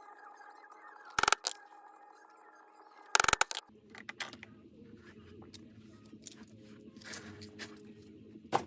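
Strikes on a 1-inch half-round leather punch, driving it through 8/9 oz veg-tan leather: sharp hits about a second in, a short cluster about three seconds in, and one more near the end.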